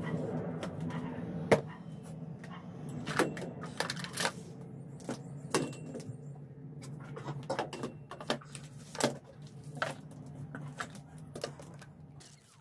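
Irregular plastic clicks and knocks from a cordless stick vacuum being handled, over a steady low hum.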